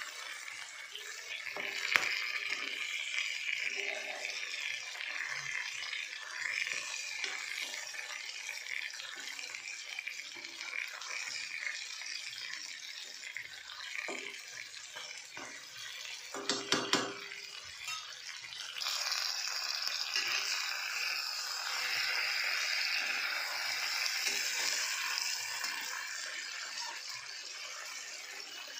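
Stuffed gourd pieces frying in oil in an aluminium kadhai, with a steady sizzle. A spatula knocks against the pan about two seconds in and again around fourteen and seventeen seconds. The sizzle grows louder from about nineteen seconds on.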